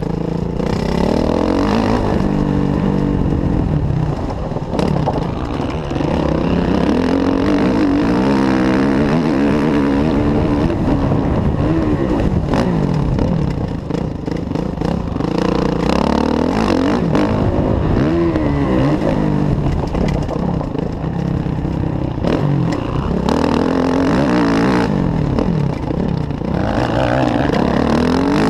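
Kawasaki KX450F's single-cylinder four-stroke engine revving up and dropping back again and again as the bike accelerates, shifts and rolls off for corners on a motocross track, heard from on the bike itself.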